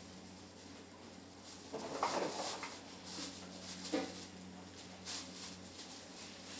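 Kitchen scissors snipping buckwheat sprout stems in short, sharp clicks, over a steady low hum of kitchen equipment. Two brief louder sounds come about two and four seconds in.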